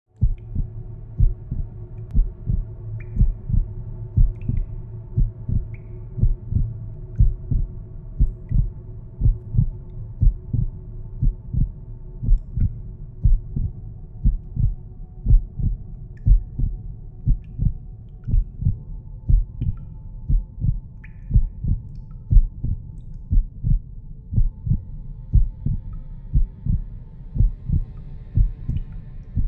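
Heartbeat sound effect: an even, steady beat of low double thumps over a sustained droning hum.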